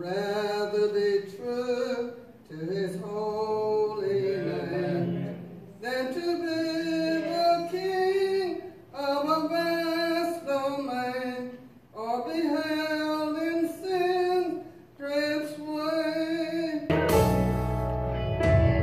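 A woman singing a gospel song solo in held phrases a few seconds long, with short breaks between them. Near the end it cuts abruptly to louder music with a deep bass.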